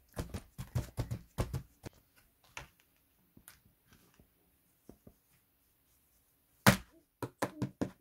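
Irregular taps and soft thuds of children's hands patting and squeezing play sand in a plastic tray, with plastic moulds knocking against the tray. The taps come thick for the first two seconds and then only now and then, until one sharp knock a little past two-thirds of the way in, followed by a quick run of taps.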